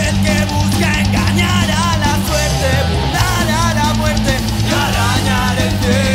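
Loud punk/heavy-metal band recording, playing steadily as a full band with a wavering melodic line over sustained low notes.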